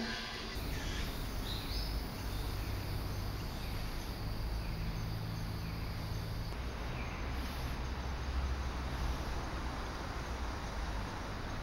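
Outdoor ambience: a steady background of insects with a few short bird calls, over a low continuous rumble.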